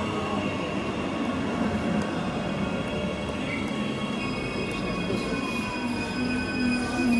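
Queensland Rail SMU electric multiple unit running along the platform: a steady rumble of wheels on rails with several whining tones over it, and a low hum growing louder near the end.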